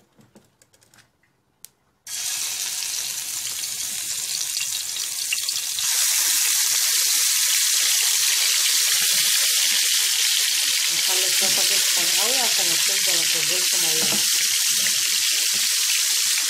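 Spiced, vinegar-marinated liver pieces sizzling in a frying pan of very hot oil. The sizzle starts suddenly about two seconds in as the liver hits the oil, gets louder again a few seconds later, and then holds steady.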